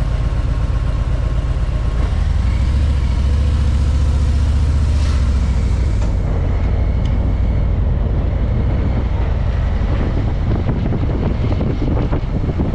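Car driving: a steady engine and road rumble, with the engine note standing out from about two to five seconds in. Near the end it turns rougher and gustier, like wind buffeting the microphone.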